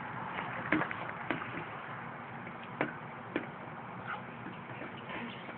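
Steady outdoor background noise with a few short, sharp taps in the first three and a half seconds.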